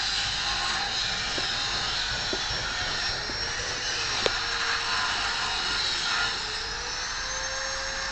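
Steady mechanical whir of a running motor, with a humming tone that wavers and then holds slightly higher near the end. A single sharp click about four seconds in.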